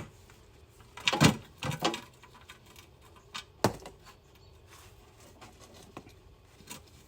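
A few sharp knocks and clacks of hard parts and tools being handled while the transmission filter is bolted in place, the loudest about a second in and another a little past the middle.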